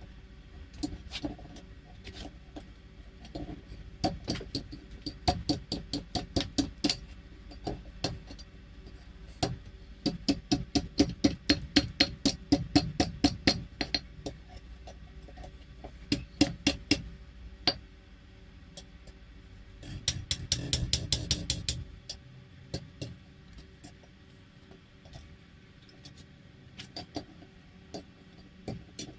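Hammer striking hot car-spring steel on an anvil, ringing with each blow, in runs of about three or four strikes a second with short pauses between, and a quicker, denser flurry about two-thirds of the way through.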